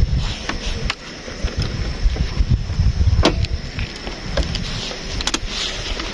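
Wind buffeting the microphone as a gusty low rumble, with a few sharp clicks and taps over it.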